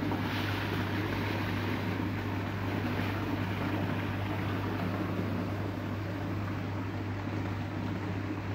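Steady low machine hum under an even rush of background noise, unchanging throughout.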